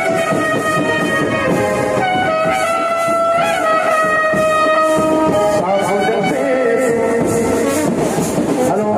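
Brass-led music playing a slow melody of long held notes that change pitch a few times.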